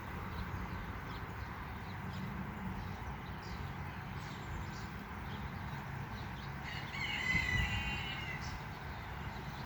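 A rooster crowing once, a call of about a second starting about seven seconds in, over a steady low hum.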